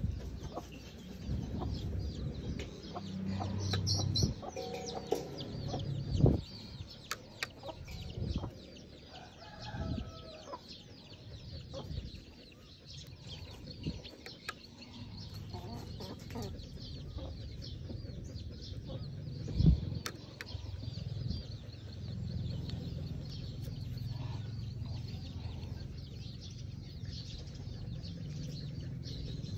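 Chickens clucking now and then, among scattered small clicks and taps close by, with two louder knocks, one about six seconds in and one about two-thirds of the way through.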